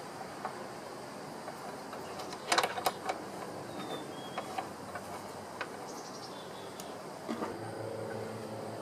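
Light metallic clicks and taps as the blade guard plate, bolt and Allen wrench are handled and fitted on a Chicago Electric 10-inch sliding compound miter saw, loudest in a quick cluster about two and a half seconds in, with a few single clicks after, over a steady background hiss.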